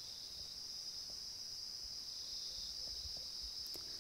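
A steady, high-pitched insect chorus from crickets or similar insects, running unbroken. A faint low rumble is underneath, and there is a single small click near the end.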